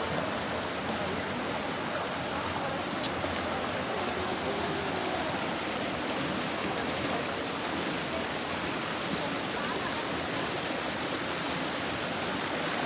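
River water rushing steadily over rocks and through small rapids and cascades.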